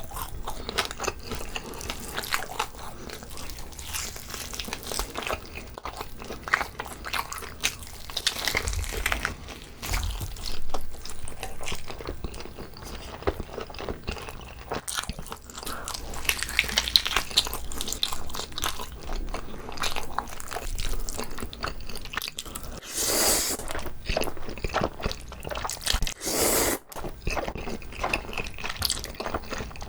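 Close-miked eating sounds of someone biting and chewing whole braised pig's trotter (jokbal): wet, sticky smacks and clicks go on steadily, with a few louder bursts later on.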